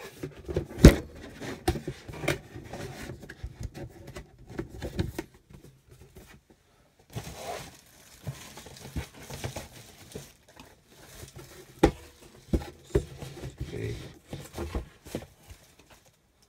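Cardboard boxes and packing material being handled: crinkling and rustling with scattered taps and knocks. There is a sharp knock about a second in and another about twelve seconds in.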